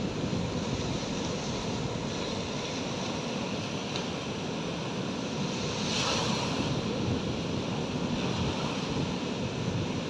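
Small sea waves breaking and washing up on a sandy beach. About six seconds in, one wave breaks closer and louder.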